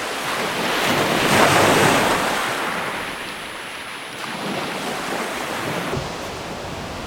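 Rushing wind and sea noise, with wind buffeting the microphone; it swells between one and two seconds in, then eases off to a steadier rush.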